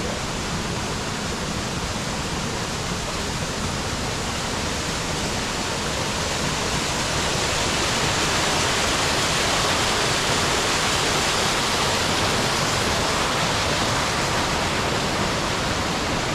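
Chipota Falls waterfall: a steady rush of falling water that grows a little louder about halfway through.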